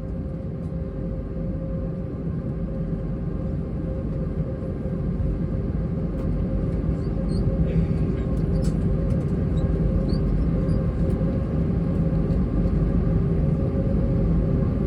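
Airbus A321's IAE V2500 engines and airframe heard from inside the cabin: a steady rumble with a low hum, growing slowly louder.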